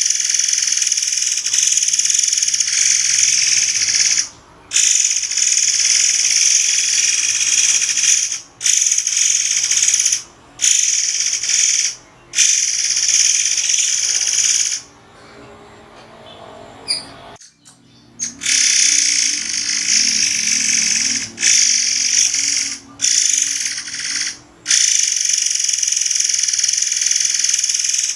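Murai air bird song from a masteran training recording: a loud, shrill, high-pitched run of sharp calls that breaks off abruptly about eight times, with one longer pause in the middle.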